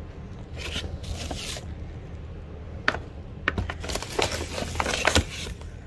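Plastic clamshell salad containers and a plastic-lined cardboard box being handled during unpacking: crinkling and scraping with sharp plastic clicks, busiest in the second half.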